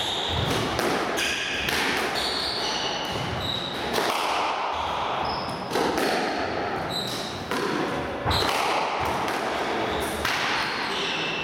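Squash rally: the ball struck by rackets and smacking off the walls again and again, with short high squeaks of shoes on the wooden court floor in between.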